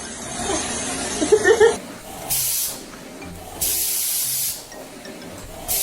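A cat hissing three times in short, sharp bursts, the middle one the longest, as a defensive warning. A few short wavering cries come before the hisses.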